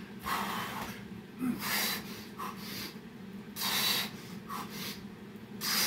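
Heavy, forceful breathing from a man exerting himself through Navy SEAL burpees: four sharp, breathy gusts about every one and a half to two seconds, over a steady low hum.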